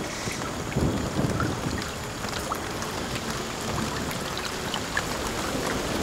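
Rain falling onto a forest pool, with scattered single drops plinking on the water surface and a low, steady rumble underneath.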